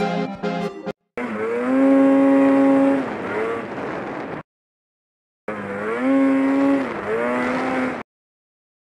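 Music with a steady beat for about a second, then a snowmobile engine revving up and holding high revs, dipping and climbing again, in two stretches of about three seconds. Each stretch cuts off abruptly into a second or two of dead silence.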